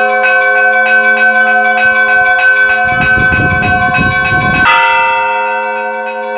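Russian church bells ringing in a peal: small bells struck in a quick, even rhythm over the ringing of larger bells, with a louder, brighter bell struck about three-quarters of the way in.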